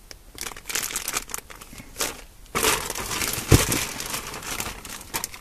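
Clear plastic parts bags from an RC car kit crinkling and rustling as they are handled and moved about in a cardboard box. There is a brief low thump about three and a half seconds in.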